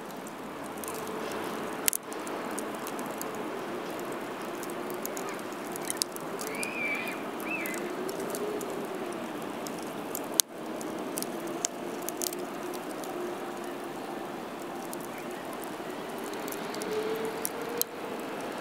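Outdoor ambience: a steady rushing background with a faint wavering tone, scattered small crackles, and two sharper cracks about two and ten seconds in. A brief high chirp sounds near the middle.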